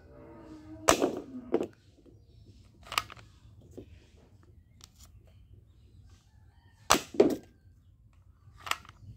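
Plastic foam-dart toy rifle being cocked and fired: sharp plastic snaps, loudest as two pairs about a second in and around seven seconds, with single ones near three seconds and near the end. A short squeak leads into the first pair.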